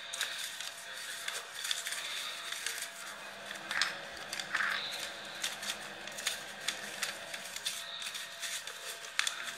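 Paper and card being handled: light rustling with scattered small clicks and taps.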